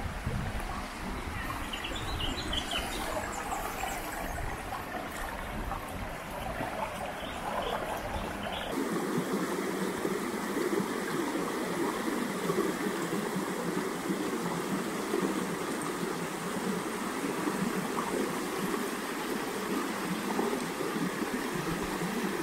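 Creek water rushing and splashing over rocks and small cascades, a steady rushing sound. It carries a deeper rumble for the first nine seconds or so, then turns lighter and splashier.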